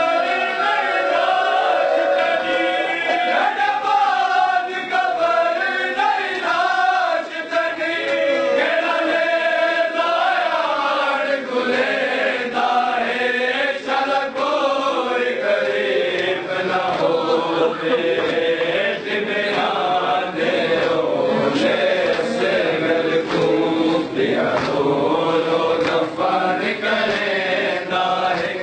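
A group of men chanting a noha, a Shia mourning lament, together in a steady rhythm; about halfway through the sound grows fuller and denser.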